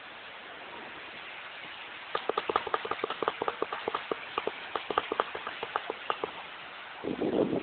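Steady hiss of heavy rain, with many irregular sharp taps of drops striking close to the microphone for a few seconds in the middle.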